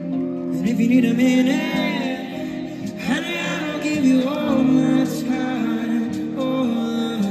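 Live band playing, with a man singing lead over electric guitars, his voice sliding between held notes.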